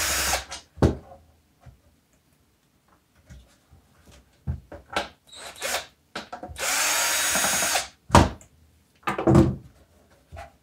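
Cordless drill/driver spinning screws out of a power supply's case in two short runs: one ending just after the start and one of about a second some seven seconds in. Knocks and clicks from handling the case and screws fall between and after the runs.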